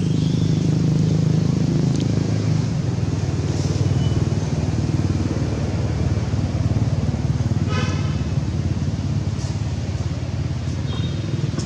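A motor vehicle's engine running nearby with a steady low rumble, and a brief high chirping trill about eight seconds in.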